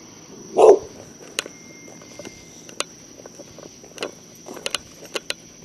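Crickets chirping steadily at night, with one short loud cry about half a second in, then scattered clicks and knocks of footsteps and camera handling as the wearer walks.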